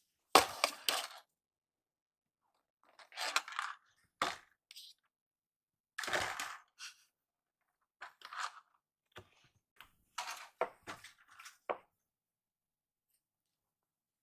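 Kitten clawing and pushing at cardboard and paper boxes: short, irregular bursts of scratching, rustling and scraping with a few sharp taps.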